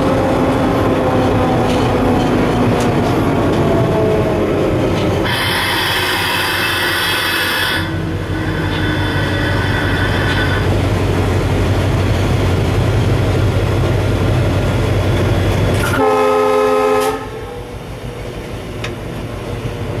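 EMD WDG4D diesel-electric locomotive heard from inside its cab, its 16-cylinder two-stroke engine running steadily under a whine that falls slowly in pitch as the train slows on dynamic braking. The horn sounds for about two and a half seconds roughly five seconds in, and gives a second, shorter blast near the end, after which the cab goes quieter.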